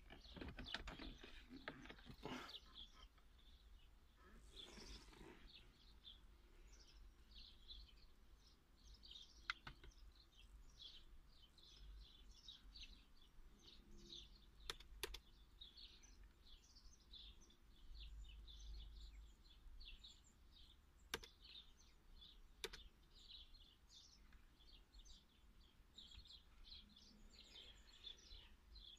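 Faint birdsong: many short high chirps going on throughout, with a few sharp clicks in between.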